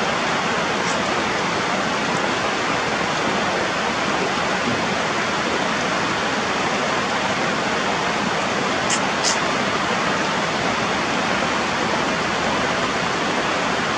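Heavy rain falling: a steady, even hiss with no let-up. Two brief high-pitched chirps sound close together a little past the middle.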